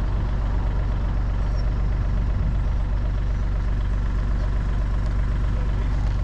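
Diesel engine of heavy digging equipment running steadily at an even speed, a constant low hum.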